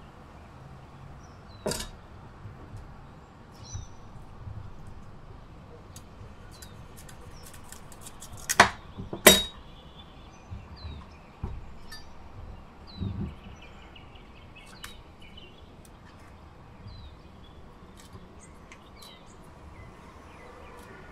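Head of cauliflower being snapped apart by hand and cut on a bamboo cutting board: a series of sharp snaps and crackles, the two loudest about halfway through. Small birds chirp in the background.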